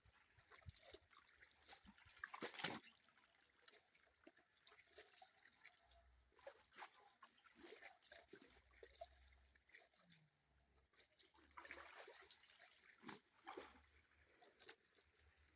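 Mostly near silence with faint, scattered splashes and dribbles of river water as laundry is hand-washed, and one louder splash about two and a half seconds in.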